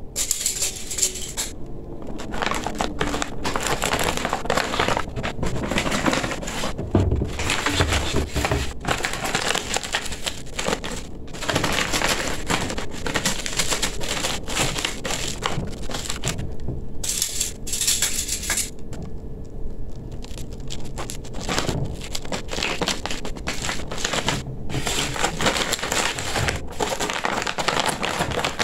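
Stiff, shiny gele headtie fabric crinkling and rustling close up as hands fold and tuck it, in irregular bursts with a few short pauses.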